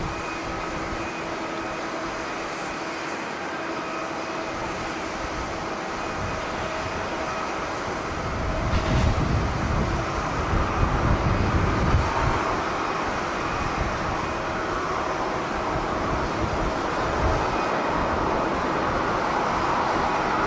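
Jet airliner engines running with a steady whine over a broad rush. From about eight seconds in, strong wind gusts buffet the microphone in low, uneven thumps.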